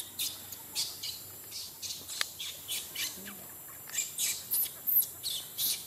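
A quick, irregular series of short, high-pitched chirping calls, about two or three a second, many sliding down in pitch, with the loudest a little before the end.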